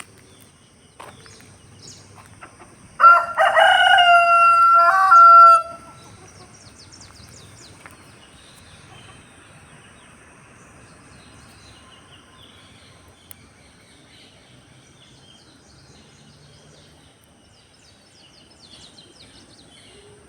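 A desi (Indian country) rooster crowing once, a loud cock-a-doodle-doo about three seconds in that lasts a little over two seconds. Faint chirps of small birds are heard before and after it.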